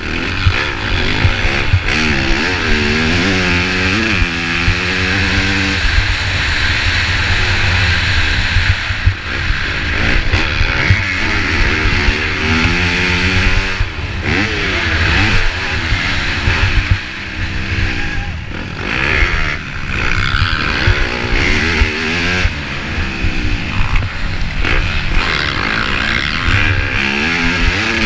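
Dirt bike engine revving up and falling off again and again as the rider races, accelerates and shifts around a motocross track, close to the engine, with a steady rush of wind on the microphone.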